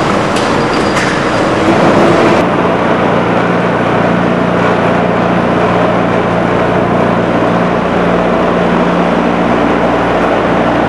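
Concrete-plant machinery running with a steady mechanical hum. It is noisier with a few clicks for the first couple of seconds, then settles into an even drone with low steady tones.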